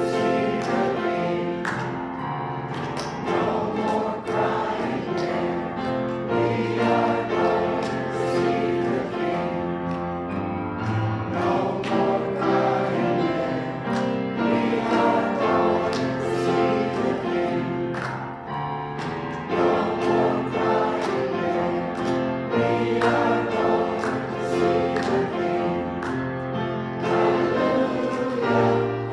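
Church congregation singing a closing hymn together, with instrumental accompaniment.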